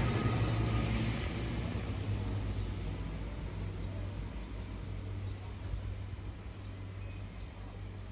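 Arriva Alstom Coradia LINT 41 diesel multiple unit pulling away: a steady low engine drone and rail noise fading as it recedes down the track.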